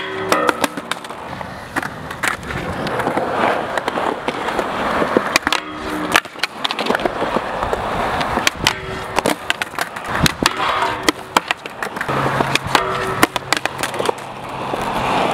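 Skateboard wheels rolling on concrete, cut by many sharp clacks of the board popping, landing and striking a metal handrail, some strikes leaving a brief ringing tone.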